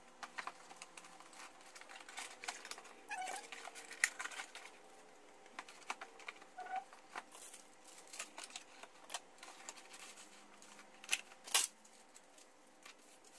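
Laptop packaging being handled: rustling of a thin protective sleeve and sheet, with irregular light taps, clicks and scrapes on the cardboard box, the loudest click about eleven and a half seconds in.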